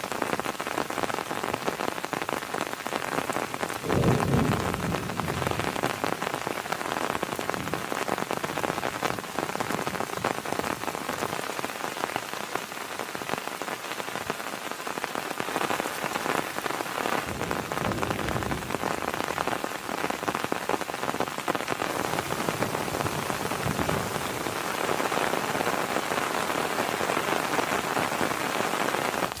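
Heavy rain falling steadily, a dense even patter, with a brief low rumble about four seconds in.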